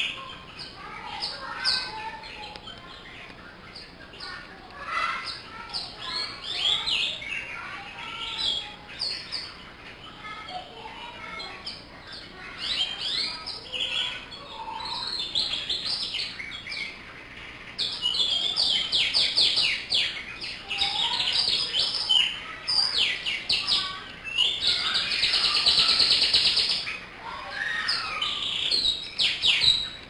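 Domestic canary singing a long, varied song of chirps and rapid trills. It grows louder in the second half, with two loud runs of fast trilling.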